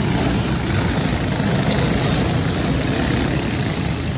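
A pack of racing karts running hard past the camera, many small engines blending into one steady drone inside a large metal-roofed arena. It eases a little near the end as the pack pulls away.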